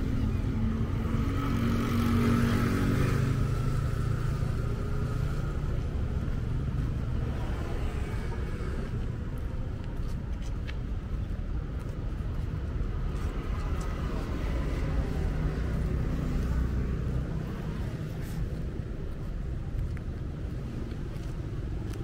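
Road traffic: cars and motorbikes passing, with one engine passing louder a couple of seconds in, then a steady traffic rumble.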